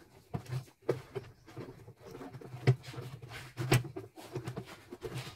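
Fabric rustling and a few sharp plastic clicks as an embroidery hoop holding a piece of cloth is handled and fitted onto an embroidery machine's hoop arm.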